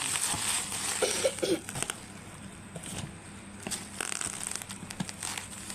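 Plastic packaging crinkling and rustling as a new product is unpacked by hand, loudest in the first two seconds, then quieter handling with a few light clicks and knocks.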